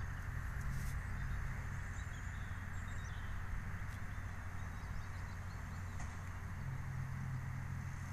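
Distant Massey Ferguson 6465 tractor and Vicon round baler working silage, a steady low hum, with a few faint bird chirps.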